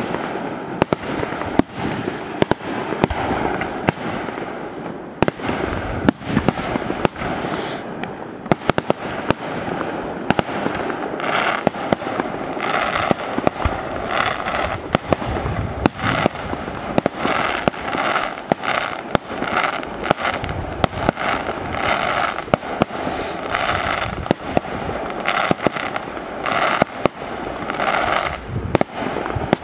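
Fireworks display going off without a break: many sharp bangs in quick, irregular succession over a continuous dense hiss of bursting shells.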